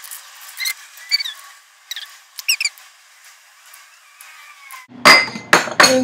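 A metal spoon clicking and giving short high squeaks against glass dishes as chopped tomatoes are spooned out, then a few loud clatters about five seconds in.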